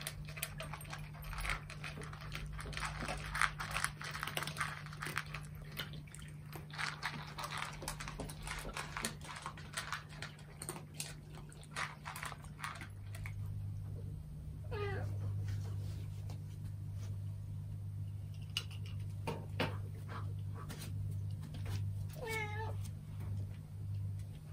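Cats eating dry kibble from bowls, many quick crunching clicks. Later a cat meows twice, the second call wavering.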